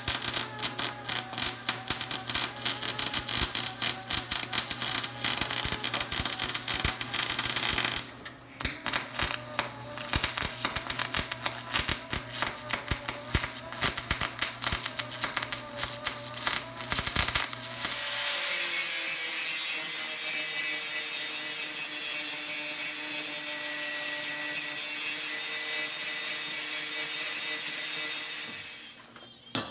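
Wire-feed welder crackling as it lays weld on a broken 3/16-inch steel bracket, in two runs with a short break about eight seconds in. About eighteen seconds in an angle grinder takes over, grinding the steel with a steady high whine until it stops near the end.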